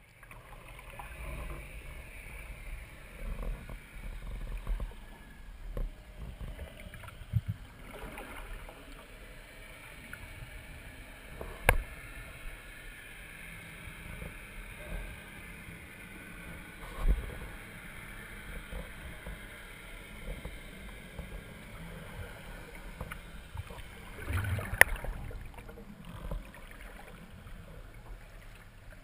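Underwater noise heard through a camera's housing on a speargun during a freedive: a steady muffled wash of water with scattered dull knocks and two sharp clicks, about twelve seconds in and again near the end.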